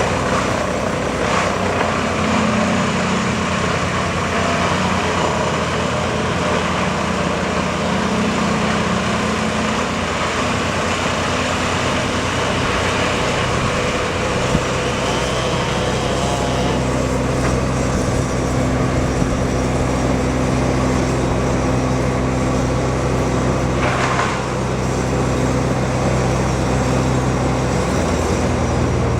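An engine running steadily throughout, its pitch shifting slightly about halfway through.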